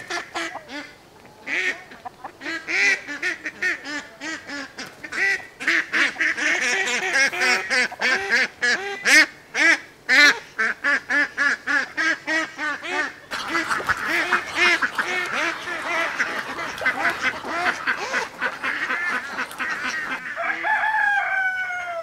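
Several drakes quacking loudly and obnoxiously, short calls one after another almost without a break, with a brief lull a little past halfway and a longer call falling in pitch near the end.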